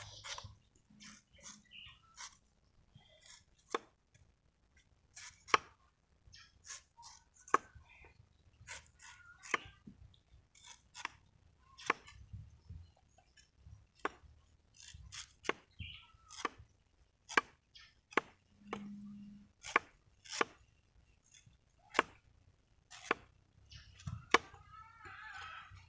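Large knife chopping and paring the outer layers off a banana sucker's corm, the blade striking through into a wooden log beneath: repeated sharp chopping strokes at an irregular pace, roughly one or two a second.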